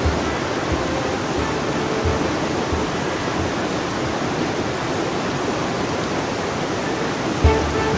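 A rocky mountain stream rushing steadily over boulders close by.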